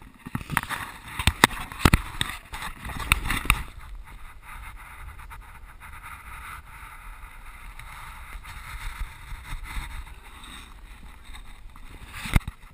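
Knocks and thuds of people moving and landing on a wooden gym floor and exercise mats, picked up by a camera resting on that floor: a quick run of sharp knocks in the first few seconds, then a steady hiss with faint scattered taps, and another knock near the end.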